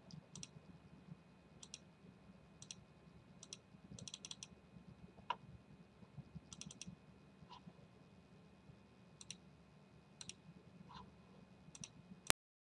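Faint computer mouse clicks, mostly close press-and-release pairs, scattered irregularly over a low steady hum. A sharper click comes near the end, and the recording then cuts off to dead silence.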